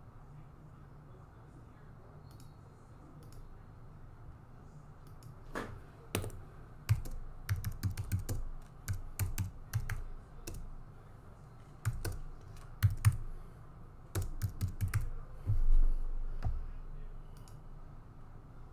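Typing on a computer keyboard: irregular runs of keystroke clicks that come in short bursts, with a dull thump near the end.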